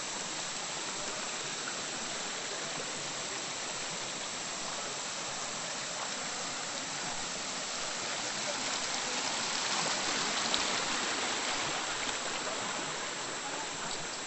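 Steady rushing of water from a stream, swelling a little louder about two-thirds of the way through.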